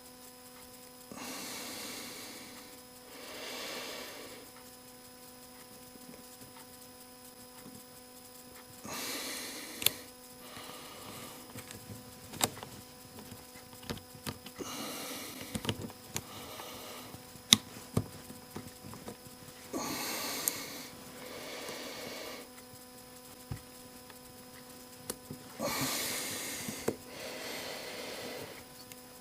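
A person breathing in and out close to the microphone, a breath every few seconds, with sharp small clicks of metal parts being handled while the impact driver's quick-change chuck is fitted back together. A faint steady electrical hum runs underneath.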